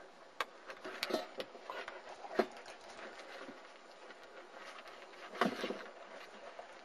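A few sharp knocks and scuffles, the sharpest about two and a half seconds in and a longer scuffle near five and a half seconds: German Shepherd puppies shifting about and bumping inside a plastic dog house.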